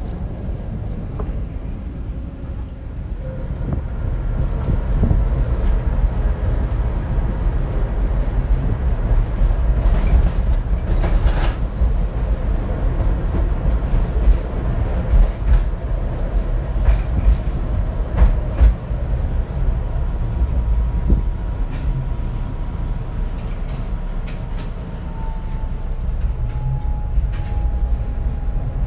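Tatra T4D tram running on its track, heard from inside the car: a steady low rumble of wheels and motors with scattered clacks, and a thin steady whine that steps down slightly in pitch near the end.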